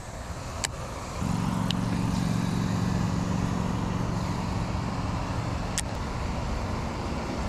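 Baitcasting reel being cranked to bring back a swimbait: a steady low whir from the reel's gears starts about a second in and runs until near the end, with a few sharp clicks.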